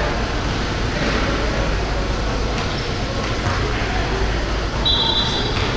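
Steady background noise of a busy indoor hall with a low hum, and a short high squeak about five seconds in.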